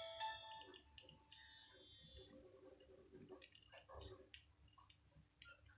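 A Nokia N73 ringtone melody playing from the phone's speaker stops within the first second. Faint clicks of the phone's keys follow, and a short key beep comes near the end.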